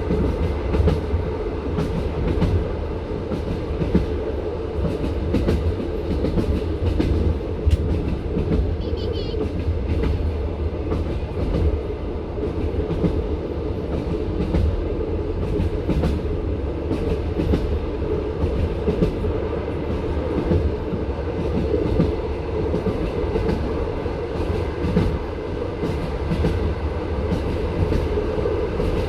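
Passenger train carriage running at speed, heard from inside the carriage: a steady rumble of the wheels on the rails with frequent knocks and clicks as the wheels pass over the rail joints.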